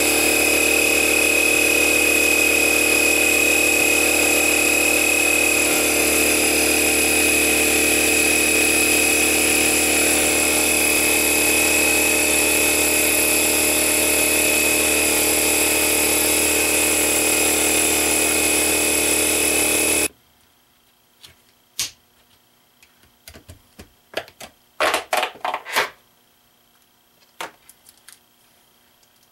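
Small portable electric air compressor (tire inflator) running steadily, pumping air into a tire whose bead will not seat. About two-thirds of the way through it cuts off suddenly. After that there are only a few light clicks and handling rustles.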